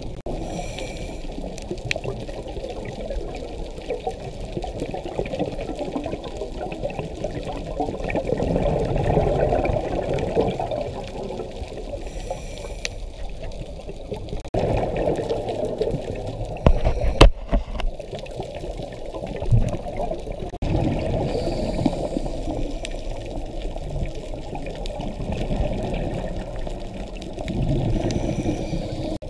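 Scuba regulator heard underwater through a camera housing: muffled bubbling exhalations swell about every six seconds over a steady watery wash, with one sharp knock a little past the middle.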